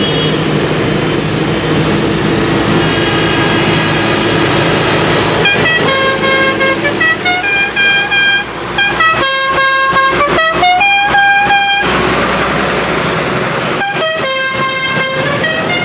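Tractor diesel engines running as the parade rolls past close by. From about five seconds in, a horn plays a tune of notes stepping up and down in pitch, breaks off near twelve seconds, and starts the tune again about two seconds later.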